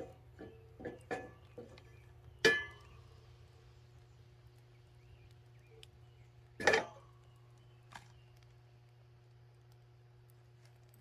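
A few sharp metallic clinks and knocks from cookware being handled over a firewood fire. The two loudest come about two and a half seconds and about seven seconds in, the first ringing briefly.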